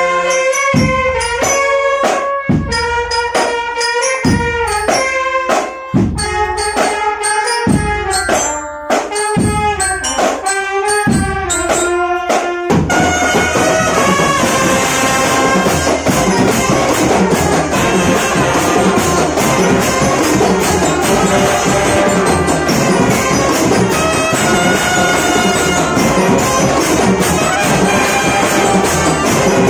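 Drum band (Indonesian marching band) playing live: trumpets and other brass with snare and bass drums. For the first half it plays a phrase of separate held brass notes punctuated by strong drum hits, and about thirteen seconds in the whole band breaks into a dense, continuous passage.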